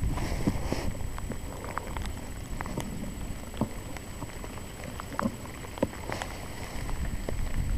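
Raindrops tapping on a helmet in quick, irregular ticks over a steady low rumble of rain and wind noise.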